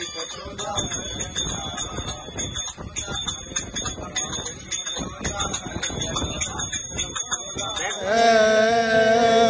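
Small brass hand cymbals jingling in a steady beat, about four strikes a second, over voices singing a devotional song. Near the end a man's loud sung line comes in.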